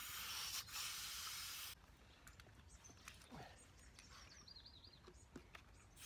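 Air hissing at a Kubota tractor's front tire valve stem from an air hose chuck, steady for under two seconds, then cutting off suddenly. The tire reads about 10 psi and is underinflated.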